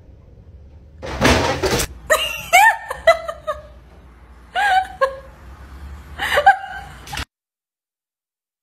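A person laughing in several short bursts, after a brief rush of noise about a second in.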